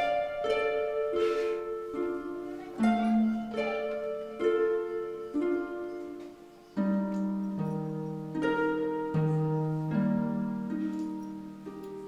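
Background score music: a slow melody of plucked-string notes, each one struck and left to ring and fade, over held lower tones.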